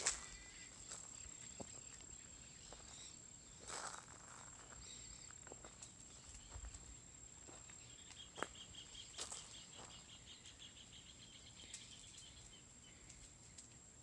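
Faint outdoor ambience: a steady, high insect trill, joined about eight seconds in by a second, faster-pulsing chirr that runs for about four seconds. A few light clicks and taps are scattered through it.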